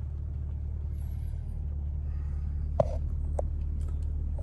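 Volkswagen Touareg's 3.0-litre V6 diesel idling, heard from inside the cabin as a steady low hum, with two light clicks about three seconds in.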